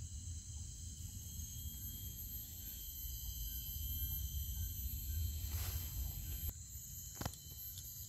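Steady high-pitched chorus of forest insects, several unbroken tones held together, over a low rumble. About six seconds in there is a short rustle, and a sharp click follows about a second later.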